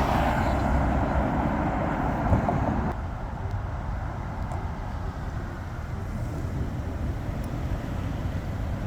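Road traffic at an intersection: a passing vehicle dies away about three seconds in, leaving a steady traffic hum.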